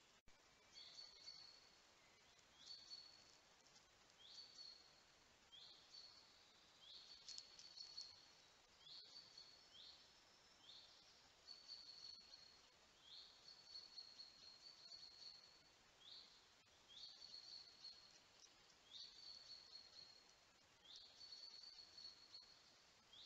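Faint high call repeated about every one and a half to two seconds, each a quick upward slide into a short held note, over a quiet forest background.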